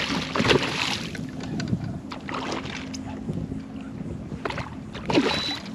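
Irregular splashing and knocking from a hooked redfish being fought at a small fishing boat, over a low steady hum.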